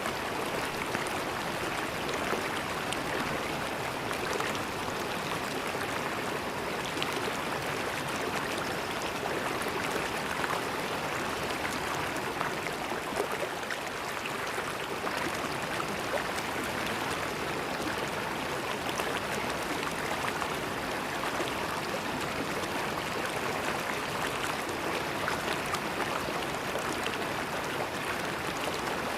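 River water flowing and gurgling steadily over stones, an even rushing with small splashes and no pauses.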